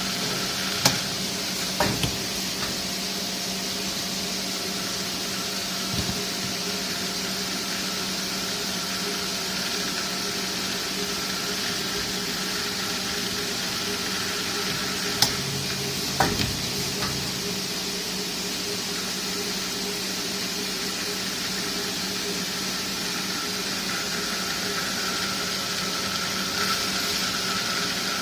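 Vacuum cleaner hose extrusion production line running: a steady machine hum with a constant whine and a hiss, broken by a few sharp clicks or knocks.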